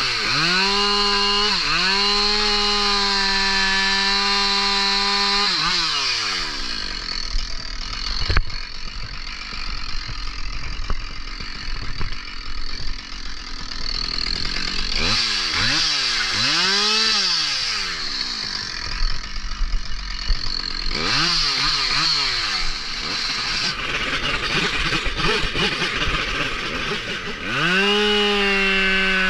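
Two-stroke chainsaw, a Husqvarna 572 XP, held at full throttle for several seconds as it cuts through a log, then dropping back toward idle. Several short revs follow, and near the end it goes back up to full throttle.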